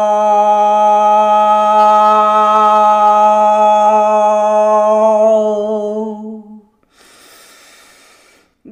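A woman's voice toning: one long sung note held at a steady pitch, wavering slightly and fading out about six and a half seconds in, followed by a faint hiss.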